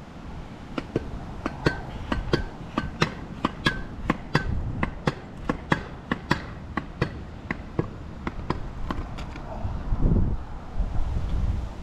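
Vurtego V3 pogo stick landing on pavement in a steady run of bounces, about three a second, fading out after about seven seconds. Wind buffets the microphone near the end.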